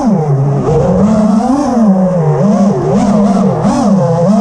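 FPV quadcopter's four brushless motors and propellers on a 6S battery, buzzing and whining loudly as the pitch swings up and down again and again with rapid throttle changes, heard from on board the drone.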